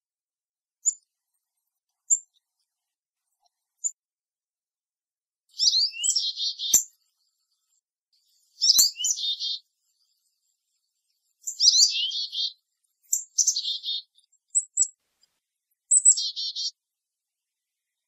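Black-capped chickadee calling: three short, high chirps, then repeated chickadee-dee-dee calls, each a high opening note followed by a run of buzzy dee notes, several times over.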